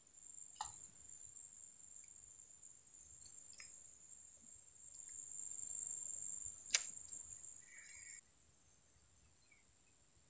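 Insects buzzing: a steady high-pitched drone that drops away about eight seconds in. A few sharp clicks break through it, the loudest about seven seconds in.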